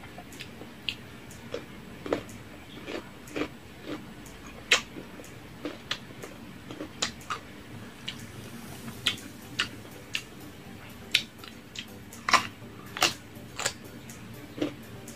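Mouth eating sounds: wet clicks and smacks of lips and tongue while chewing spicy barbecue pork ribs, coming irregularly, about one or two a second.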